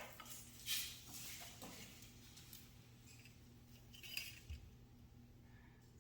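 A few faint clinks and knocks in the first two seconds, then a low steady hum with one more small knock about four seconds in.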